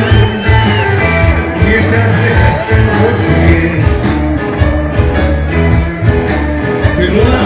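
Live rock band playing loud, with a steady beat of cymbal hits over a bass line and guitar.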